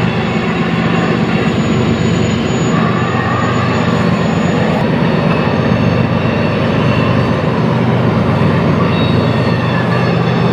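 Freight train of coal hopper cars rolling past close by: a loud, steady rumble of wheels on the rails over a low, steady diesel locomotive hum.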